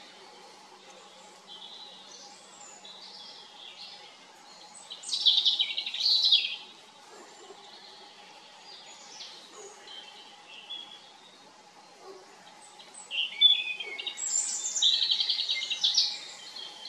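Songbirds singing, with high chirping, trilled phrases: one loud spell about five seconds in, quieter calls between, and another long loud spell near the end. A faint steady hum lies underneath.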